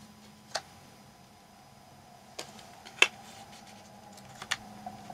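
Paper cut-outs being handled and set down on a journal page: a few light, sharp taps and rustling clicks, the loudest about three seconds in, over a faint steady hum.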